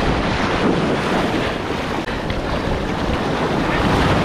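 Wind buffeting the microphone over the steady wash of surf in the shallows.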